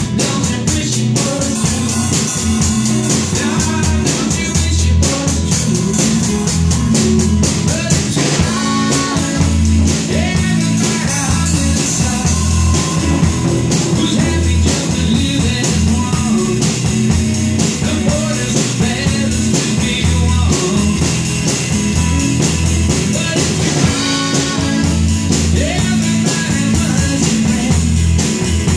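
A rock song with a singing voice and guitar plays loudly with a steady beat, while a toddler strikes a Slingerland drum kit and Zildjian cymbals with drumsticks along with it.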